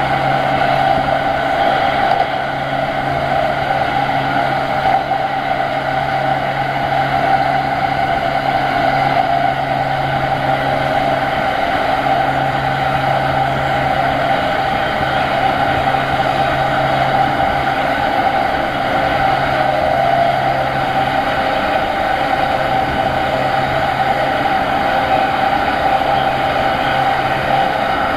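JR East E231 series 800 electric commuter train running at a steady speed, its steady whine and hum over the noise of the wheels on the rails.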